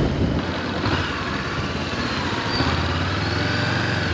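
Motorcycle engine running steadily, most likely the Honda CB400X's parallel-twin: a low hum that grows stronger after about two and a half seconds.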